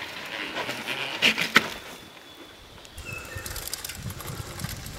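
Mountain bike tyres scraping and skidding on loose dirt, with two sharp scrapes about a second and a half in. Then wind rumbles on the microphone, with a couple of brief bird chirps.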